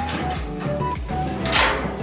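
Background music with a beat, held melody notes and a bass line.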